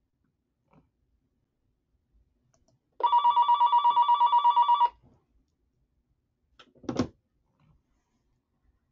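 Electronic telephone ringer giving one trilling ring of about two seconds, pulsing about nine times a second. A short knock follows about two seconds later.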